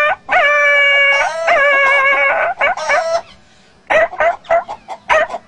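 A man imitating animal calls with his voice: several long, held yelping cries like a dog hurt by a stick, then a quick run of short choppy calls like a hen clucking about four seconds in.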